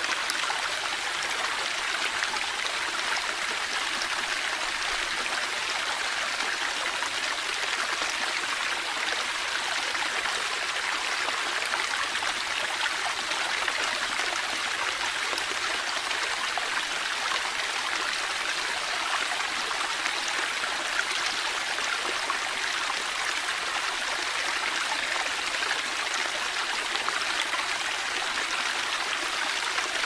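Tiered fountain's water falling and splashing steadily into its round basin, an even rushing hiss.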